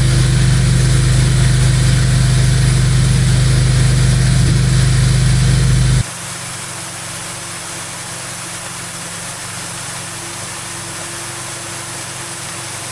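An engine running steadily, a deep even hum. About six seconds in it cuts off abruptly to a quieter, steady mechanical hum.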